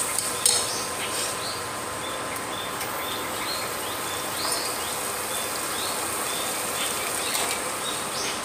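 Chicken and potato curry sizzling in a pressure cooker pot: a steady hiss with small pops about every half second. A metal spatula clicks against the pot once, about half a second in.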